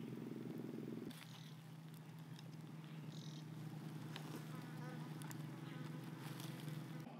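A steady, faint, low buzzing hum that thins out abruptly about a second in, with a few faint clicks over it.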